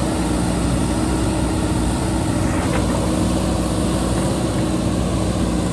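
Diesel engine of heavy machinery running at a steady speed, with no revving.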